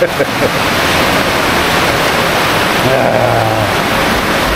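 Heavy flash-flood downpour: a steady, loud rush of rain.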